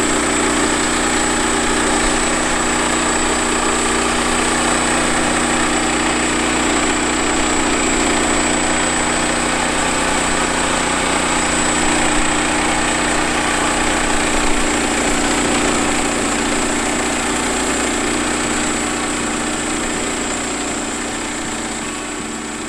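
Woodland Mills HM122 portable bandsaw mill cutting a cedar log: its gasoline engine running steadily under load with the band blade sawing through the wood and a thin steady high whine over it. The sound fades out over the last few seconds.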